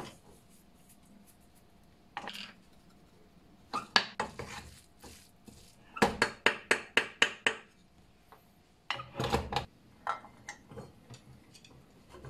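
Wooden spatula knocking and scraping against a metal frying pan as fried rice is stirred: scattered knocks, with a quick run of about eight taps in the middle and another cluster a few seconds later.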